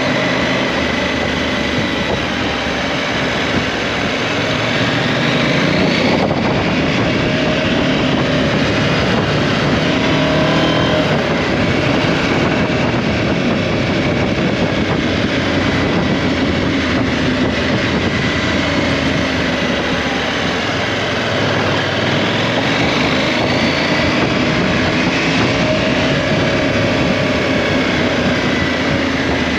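KTM 790 Adventure's parallel-twin engine running on the move, its pitch rising and falling several times as the bike accelerates and eases off, over a steady rushing noise.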